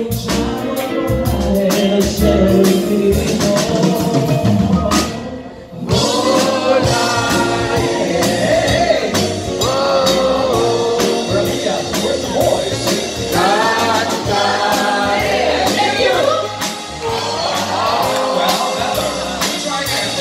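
Live stage band, with drum kit, bass guitar, piano and saxophones, playing a song with a group of singers. There is a short drop in the music about five seconds in, then the voices come in over the band.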